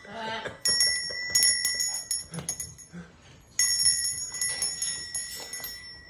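A parrot's hanging stainless-steel cylinder bell being rung by an African grey parrot: quick runs of metallic clinks, each ringing on with a bright tone. One run comes about a second in and another past the middle.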